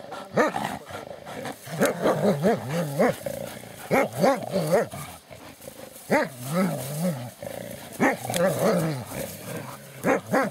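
Dogs growling in play while tugging a stick between them: repeated growling bouts about every two seconds, the pitch wavering up and down.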